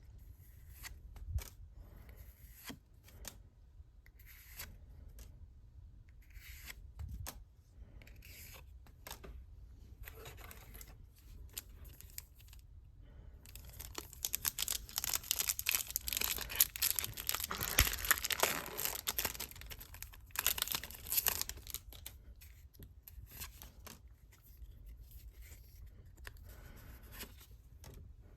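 Trading card packaging being handled with scattered light clicks and rustles, then torn open and crinkled for about eight seconds in the middle.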